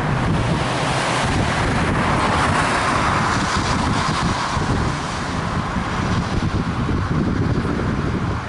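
Wind rumbling on the microphone over a steady hiss of traffic on a wet road, with a swell of tyre hiss between about two and five seconds in as a vehicle passes.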